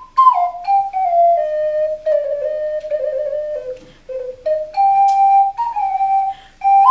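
A small flute playing a slow melody of held notes. The tune steps gradually downward, reaches its lowest notes about four seconds in, then climbs back up.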